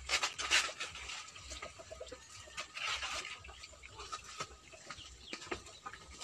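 Oil crackling and sizzling as batter cakes fry in woks over a wood fire, with hens clucking.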